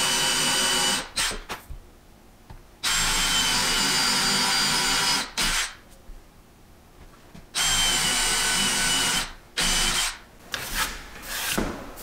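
Cordless DeWalt drill with a half-inch Forstner bit boring holes into a hardwood stair tread. It makes three runs of one to two and a half seconds each, a steady whine with stops between them, followed by a few light knocks near the end.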